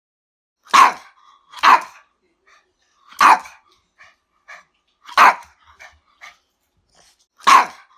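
A dog barking: five loud single barks at uneven gaps, the first two close together, with a few faint short sounds between them.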